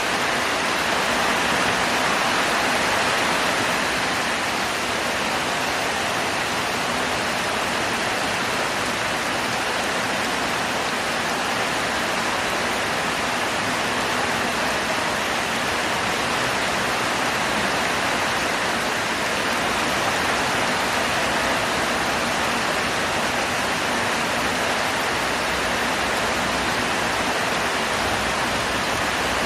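Heavy rain falling steadily in an even, unbroken downpour.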